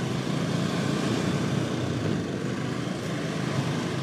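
Steady road noise from riding a motorcycle through night traffic: the bike's engine hum mixed with wind rushing past.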